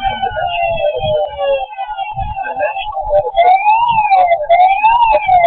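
A siren-like wail that sweeps up and down about once a second, starting a little past halfway, over a steady tone and low thumps. Before it come a few falling tones.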